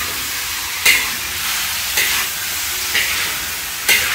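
Mushrooms and vegetables stir-frying in oil in a large pan, with a steady sizzle. A spatula stirring them strikes and scrapes the pan four times, about once a second.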